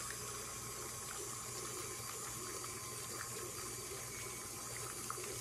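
Stand mixer running with its wire whisk churning cream that is separating into butter grains and buttermilk: a steady, faint wet sloshing over a low motor hum.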